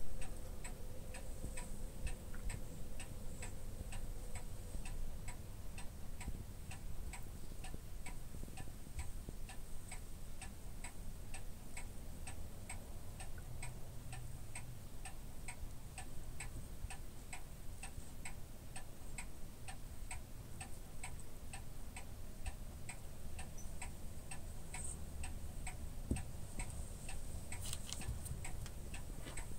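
Steady ticking, about two ticks a second, over a low hum. A brief rustle near the end.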